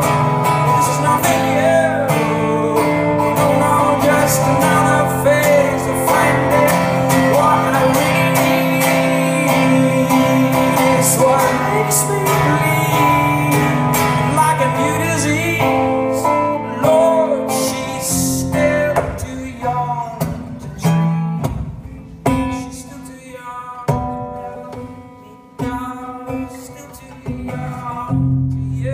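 Acoustic guitar strummed live in an instrumental passage, full and sustained at first; after about 17 seconds it thins to separate strummed chords with short gaps and grows quieter.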